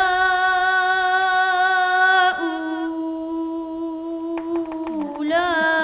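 A boy's solo Quran recitation in melodic tajwid style, drawing out the long vowel of "awliyā'" as one held note that steps down in pitch about two seconds in and is held again. Near the end he starts the next phrase, "ulā'ika", with a wavering ornamented line.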